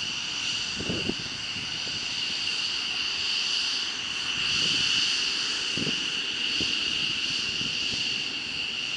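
F-15 Eagle fighter jet taxiing, its twin turbofan engines giving a steady high-pitched whine that swells slightly about five seconds in.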